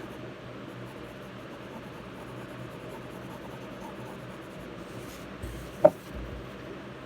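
Pencil scratching on paper as lines are drawn, with one sharp knock about six seconds in.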